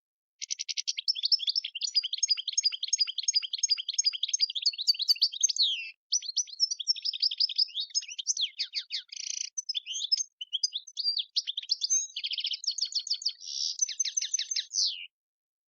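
European goldfinch singing: a fast, high-pitched twittering song in three long phrases, with brief breaks about six and ten seconds in.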